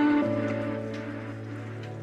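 Soft background music: a held chord that slowly fades.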